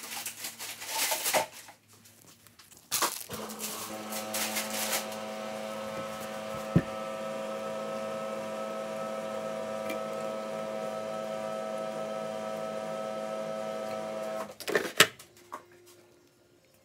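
Scraping and rustling of powder laundry detergent being handled in plastic scoops, then a steady electric hum with several pitches held for about eleven seconds. There is a sharp click partway through and a few knocks near the end.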